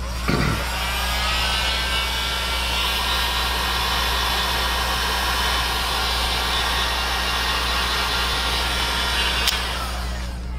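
Electric heat gun switched on, its fan whine rising as it spins up, then blowing steadily with a rush of air. It cuts off sharply near the end.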